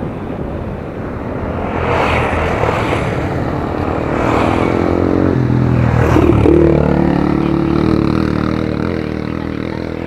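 A motorcycle passes and rides off up a gravel road. Its engine grows louder to a peak about six seconds in, drops in pitch as it goes by, then fades. Under it is the rolling clatter of a bicycle on gravel.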